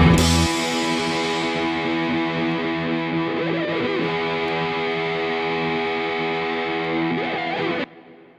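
Background rock music ending: the drums stop about half a second in and a distorted guitar chord is held, then cut off abruptly near the end.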